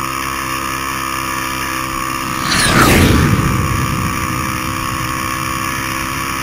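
Quad ATV engine running at a steady pitch while riding on sand, heard from the rider's own machine. About three seconds in there is a louder rush with a falling sweep.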